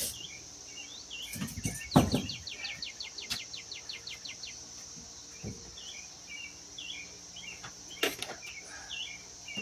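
Steady high insect buzz with scattered bird chirps, including a quick trill of about a dozen notes. A few knocks and clunks come from handling bike parts while fetching the seat, the loudest about two seconds in and another near the end.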